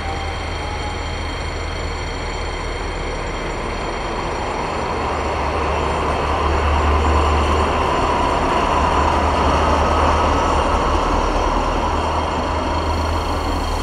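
SNCF BB 67400 diesel locomotive's SEMT Pielstick V16 engine running with a deep drone as the locomotive pulls slowly past. It grows louder about halfway through, with steady high-pitched whines over it.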